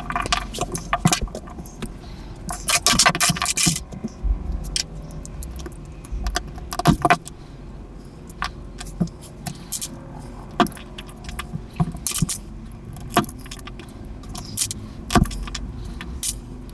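Plastic pieces of a Rubik's cube clicking and clattering as the cube is taken apart, with a dense run of rattling about three seconds in and scattered single clicks after it.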